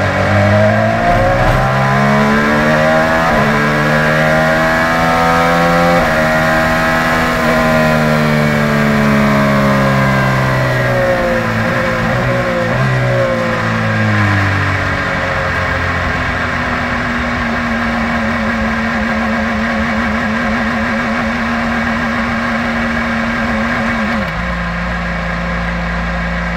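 Honda 2.2-litre twin-turbo V6 of an IndyCar heard onboard: it accelerates through quick upshifts, then slows with a series of downshifts. It then holds a steady low engine speed with a slight waver and drops to idle about 24 seconds in as the car comes to a stop.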